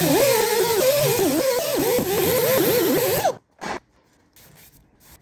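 Right-angle die grinder with a blue sanding disc grinding down a weld on the sheet-steel cab panel, its whine wavering up and down as it bears on the metal. It stops suddenly about three seconds in, with one short blip just after.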